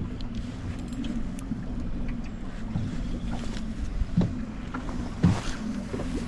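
Wind buffeting the microphone and choppy lake water slapping against a small wooden boat's hull, with a couple of light knocks about four and five seconds in.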